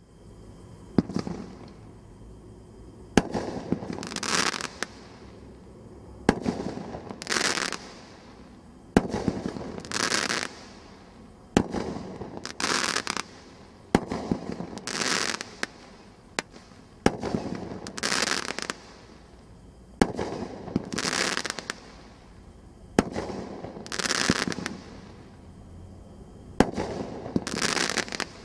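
Brothers Pyrotechnics 'Jaws' 16-shot 350-gram firework cake firing about ten shots, one every three seconds or so. Each is a sharp launch thump, followed about a second later by a crackling burst in the air lasting about a second.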